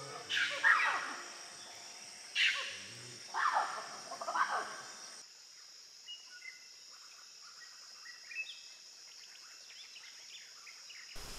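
Forest ambience: a steady high insect drone under several loud animal calls, each sweeping down in pitch, in the first half. After an abrupt change, a quieter background with scattered small bird chirps.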